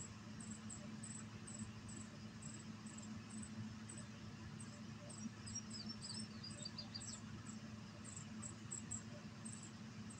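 Outdoor ambience of a high, short insect chirp repeating two or three times a second, with a brief bird phrase of quick falling notes about midway and a low steady hum underneath.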